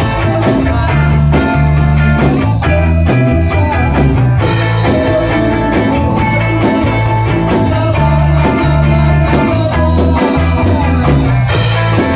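Rock band playing an instrumental passage: electric guitar over bass and drum kit, with held bass notes changing every second or so.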